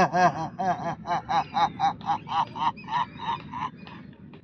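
A man's throaty lion's roar from simhasana (lion pose), voiced from the throat with the tongue stuck out: a loud 'haaa' with a wavering pitch that breaks into rhythmic pulses, about four a second, fading out near the end.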